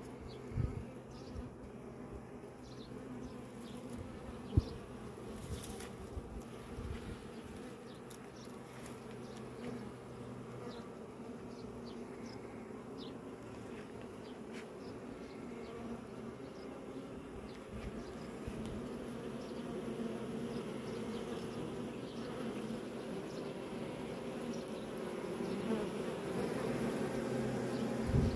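Honeybees buzzing at an open hive, a steady hum that grows louder over the last third. One sharp knock about four and a half seconds in.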